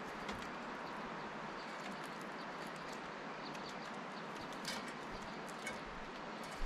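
Steady outdoor hiss with scattered light taps and a few faint, short high bird chirps, as a Steller's jay flutters in near the start and stands on a wooden deck railing beside a seed feeder.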